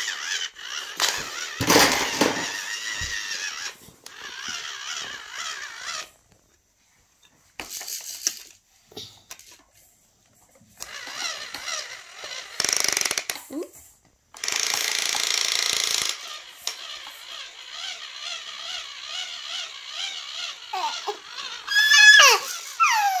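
Battery toy power drill whirring in repeated bursts of a few seconds each as its bit turns into toy wooden planks, stopping sharply between them. A baby's vocalising comes in briefly near the end.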